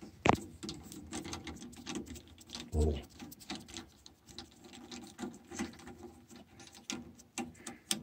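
Screwdriver and fingers clicking and scraping on the screws and metal bracket of a DEMA solenoid water-feed valve being taken apart, with a sharp knock just after the start and a duller thump near three seconds.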